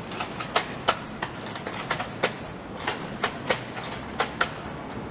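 Nerf blasters firing and foam darts striking: a rapid, irregular series of sharp clicks and snaps, about three a second.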